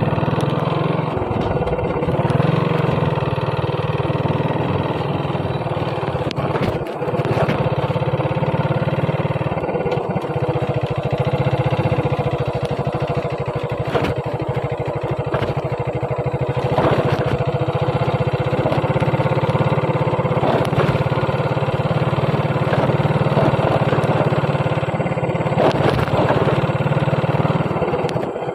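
Motorcycle engine running steadily while riding, with a constant hum and occasional short knocks as the bike goes over a rough, potholed dirt road.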